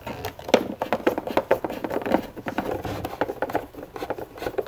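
Long-shaft T10 Torx screwdriver backing a long screw out of a battery case: a run of small, irregular clicks and light scraping as the driver turns and the hand works it.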